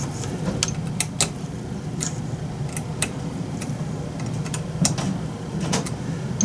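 Irregular small clicks and taps from tiny screws and a small screwdriver bit being worked by hand on a 3D printer's hotend fan mount, over a steady low hum.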